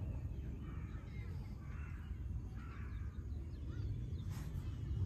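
Steady low outdoor rumble, like wind on the microphone, with a bird calling twice about two and three seconds in.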